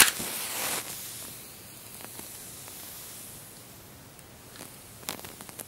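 A match struck, flaring with a loud hiss, then burning with a softer hiss that slowly fades as it lights a candle; a few light clicks near the end.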